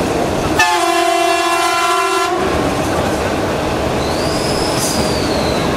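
Horn of a Dongfanghong 21 (DFH21) diesel locomotive sounding one long blast of about a second and a half, starting a little under a second in, over the steady running noise of the metre-gauge train. A faint high whine rises and falls near the end.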